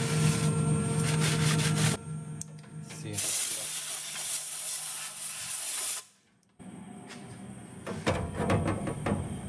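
Compressed-air blow gun hissing steadily for about three seconds, clearing chips off a freshly machined part. Before it a steady machine hum, and after a short break a few light clicks.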